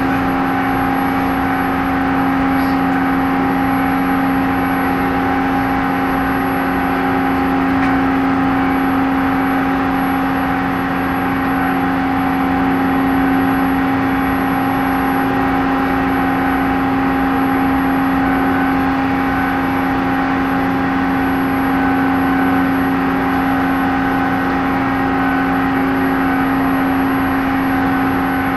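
A ferry's engines and onboard machinery droning steadily while the ship berths: a constant low hum with a fainter whine above it, unchanging in pitch.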